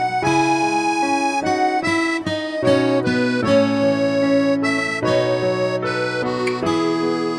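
Instrumental background music: a melody of held notes over chords, at a steady level.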